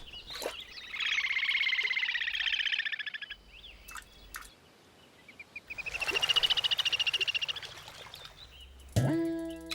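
Two long, rapid trilling animal calls, each lasting a couple of seconds with a pause between them. Near the end, plucked guitar notes of background music come in.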